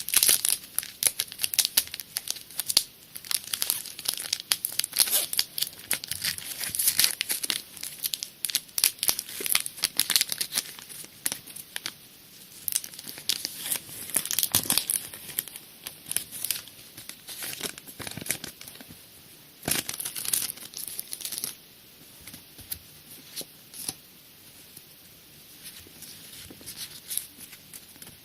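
Pokémon card booster pack's foil wrapper being torn open and crinkled, a fast run of crackles that is busiest in the first half and thins out after about twenty seconds.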